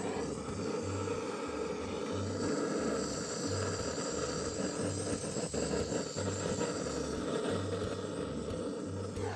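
Handheld gas torch burning with a steady hiss as its flame lights coconut charcoal briquettes.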